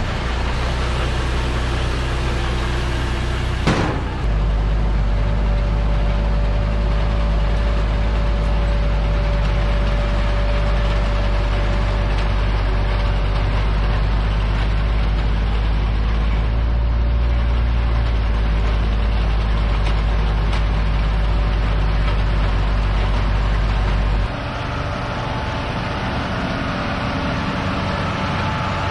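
Tractor engine running steadily under load while pulling a round baler at work. A sharp knock comes about four seconds in, after which the sound gets louder, and it drops back down again near the end.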